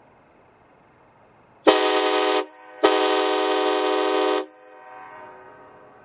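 Nathan Airchime air-powered train horn sounding its chord in two blasts: a short one, then about half a second later a longer one of about a second and a half, each starting abruptly. The sound trails off faintly after the second blast.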